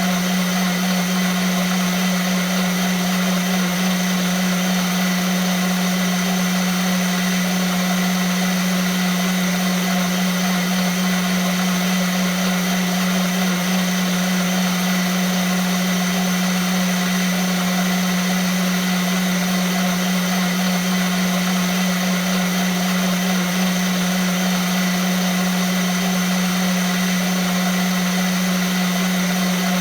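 Vitamix blender motor running steadily at one speed: a strong low hum with a dense high whirr over it, unchanging throughout.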